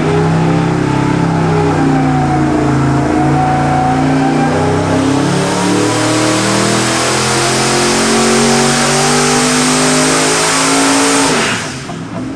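Twin-turbo 427 cubic-inch LS V8 running under full load on an engine dyno during a power sweep. Its note rises slowly in pitch, with a hiss that grows louder from about halfway through. About eleven and a half seconds in the pull ends and the sound drops away sharply.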